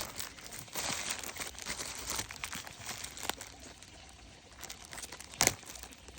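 Plastic bead bags crinkling as they are handled, with small ticks of loose beads, and one sharper tick about five and a half seconds in.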